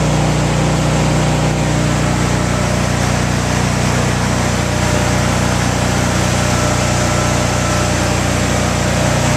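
Backup generator's engine running steadily at a constant speed.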